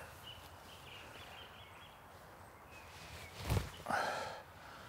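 Quiet open-air ambience with faint high bird chirping, then a single thump and a brief rustle about three and a half seconds in.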